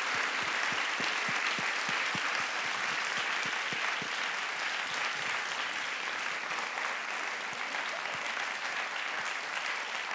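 An audience applauding steadily, easing off slightly toward the end.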